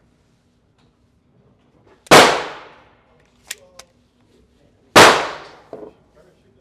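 Two pistol shots from a Glock, about three seconds apart, each followed by a short fading ring of room echo. A couple of faint light clicks come between them.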